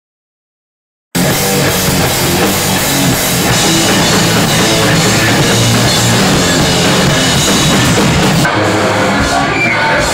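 About a second of silence, then a hardcore punk band playing live at full volume, with loud drums, recorded on a Hi-8 camcorder's microphone.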